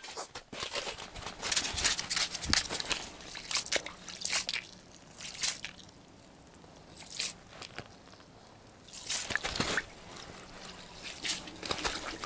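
Ice scoop skimming slush and ice shavings out of a freshly drilled ice-fishing hole: wet scraping, sloshing and dripping in irregular strokes, with a quieter lull in the middle.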